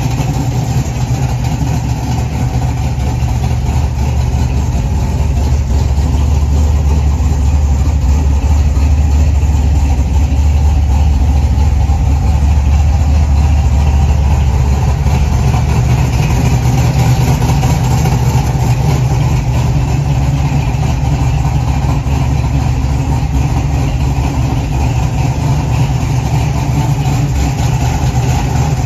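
A 1969 Chevrolet Camaro's 383 stroker V8 idling steadily.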